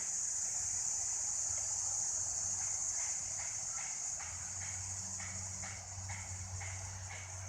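Steady high-pitched drone of crickets. About two and a half seconds in, a run of short chirps starts, repeating about two or three times a second, and a low hum comes in around halfway.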